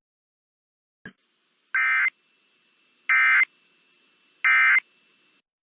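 Emergency Alert System end-of-message signal: three short bursts of digital data tones, evenly spaced about a second apart, the SAME code that closes an EAS test. A faint click comes just before them.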